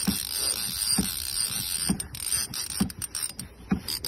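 Fishing reel being cranked hard against a hooked fish: gears clicking, with a dull knock about once a second as the handle turns.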